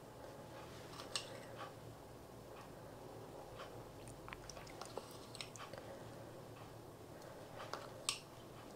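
A metal spoon clicking and scraping against a china bowl and cake tins as runny icing is spooned over cakes; faint, with a few sharper clicks, the loudest about a second in and near the end.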